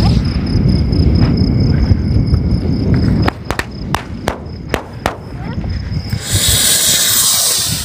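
A loud low rushing noise stops abruptly. Then about six sharp firecracker bangs come in quick succession over roughly two seconds: the attached 7-shot signal rocket going off on the ground because the overloaded rocket did not climb high enough. A high fizzing hiss of burning pyrotechnics follows near the end, over a steady background of crickets.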